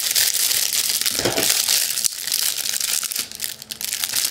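Clear plastic wrapping crinkling as it is pulled open and off a metal bracket; the crinkling is dense for about three seconds, then thins out and gets quieter.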